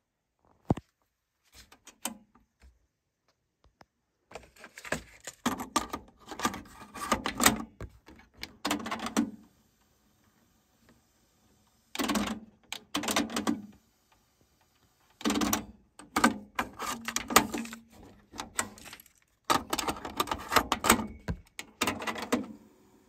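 Onkyo TA-RW244 dual cassette deck's transport buttons pressed and its tape mechanism engaging, in several bursts of rapid clicking and clattering with short pauses between.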